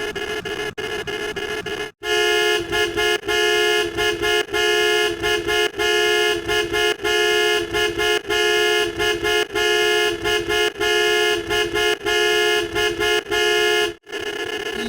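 Car horn honking in many short and long blasts, with a two-note dual-tone sound. It starts abruptly about two seconds in after a hissy, buzzy noise and cuts off near the end.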